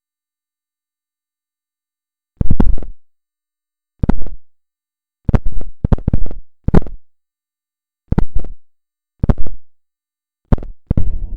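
Refrigerator's strange signal: short, loud noisy bursts at irregular gaps, each starting suddenly and fading within about half a second, about nine of them after two seconds of silence. The uploader takes this pattern for Morse code.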